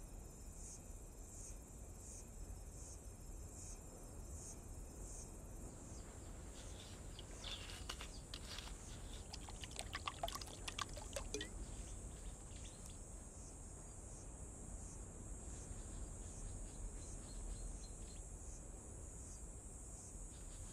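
Steady high trilling of insects, with a separate high chirp repeating about twice a second that stops about five seconds in. Partway through, liquid is poured from a glass bottle into a gourd bowl, with a short run of splashes and trickles.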